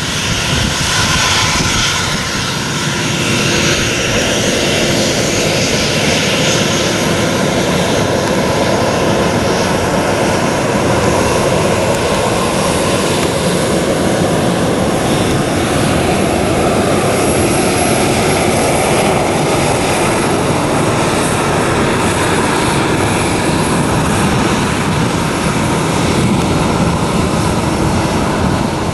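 Boeing 737-800's CFM56 jet engines running at low power on the ground, a loud steady rush. A thin high whine comes in about twelve seconds in.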